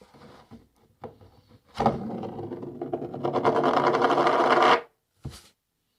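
A coin spinning on a cardboard box: a fast rattle that lasts about three seconds and stops suddenly as the coin falls flat, followed by a small tap.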